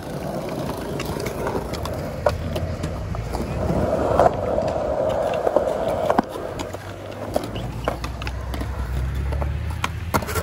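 Skateboard wheels rolling over concrete skatepark ground, with several sharp clacks of the board as a trick is popped and landed.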